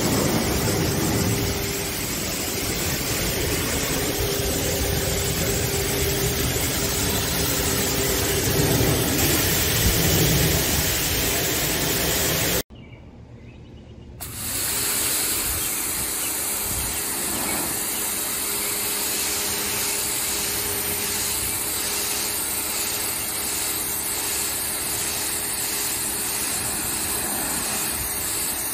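Pressure washer running, its spray hissing steadily over a low engine rumble. A little under halfway through the sound cuts out for about a second, then a pressure washer wand spraying concrete hisses steadily again with a faint even pulsing.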